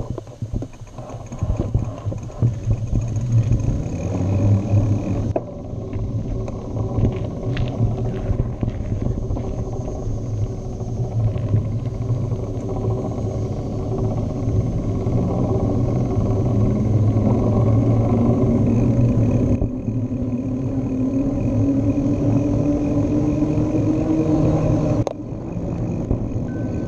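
Steady low rumble of riding a bike, picked up by a handlebar-mounted action camera: wind on the microphone and road noise. A low hum slowly rises in pitch over the second half, and the level drops a little just before the end.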